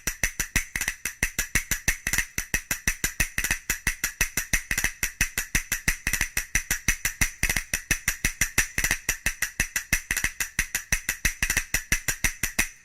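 A rapid, even roll of strikes on a metallic percussion instrument, about eight a second, each ringing at the same high pitch, stopping near the end.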